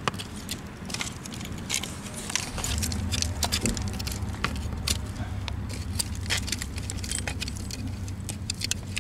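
Old glass bottles and shards clinking and knocking together as they are dug out of privy dirt and handled, a rapid scatter of sharp clinks. A low steady rumble comes in about two and a half seconds in.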